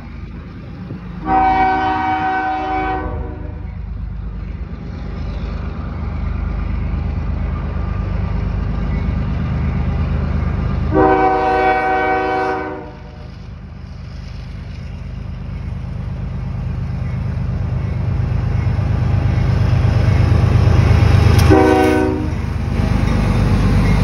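CSX freight diesel locomotive's multi-chime air horn sounding three blasts, two long ones about ten seconds apart and then a short one near the end, as the train approaches. Under the horn the locomotive's engine and wheels make a low rumble that grows louder as it nears.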